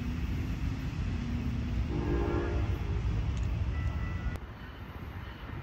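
A train horn sounds one short chord about two seconds in, over a low rumble that drops away about four seconds in.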